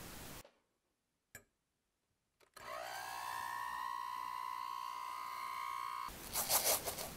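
Electric hand mixer: two clicks, then the motor starts up with a whine that rises in pitch and settles into a steady run as the wire beaters whip egg whites in a glass bowl. Near the end the sound turns louder and harsher.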